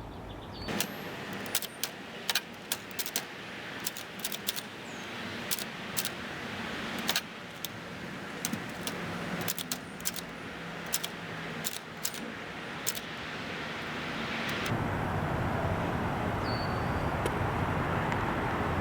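Nippo Elgin Collegiate portable typewriter being typed on: sharp, irregular key strikes for about thirteen seconds, then they stop. A steady rushing noise builds underneath and carries on alone, loudest near the end.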